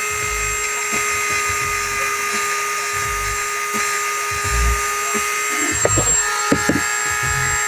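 Small handheld electric rotary tool running with a steady high whine while grinding a hatchet's edge to sharpen it, with a few knocks and clicks about six seconds in as the tool and hatchet are handled.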